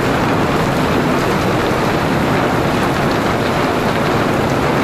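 Heavy rain mixed with hail pouring down on a street and pavement: a loud, steady, dense hiss.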